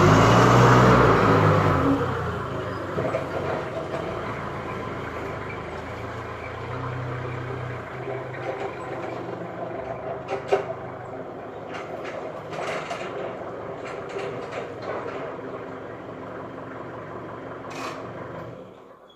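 Hyundai forklift engine running as the truck moves off, loud up close for about the first two seconds, then fading to a steadier, quieter hum. A few short knocks and clatters sound through it.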